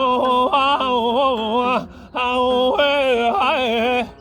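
A single voice singing wordless, yodel-like vowel phrases ('oh-ha-oh', 'ah-oh-heh') with wavering, ornamented pitch: two phrases with a short break about two seconds in.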